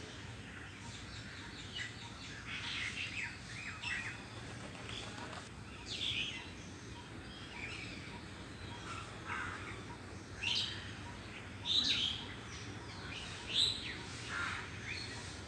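Birds chirping: many short, scattered calls at irregular intervals, a few louder calls coming in the second half.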